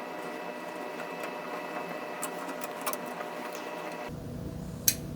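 A faint steady mechanical whir with several fixed tones, stopping about four seconds in, with a few light clicks of small parts being handled.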